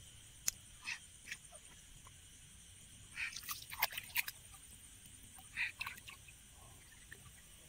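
A steady, high-pitched night chorus of insects and frogs, with a cluster of short splashes and clicks about halfway through and another shortly after, as a hand gropes in shallow water.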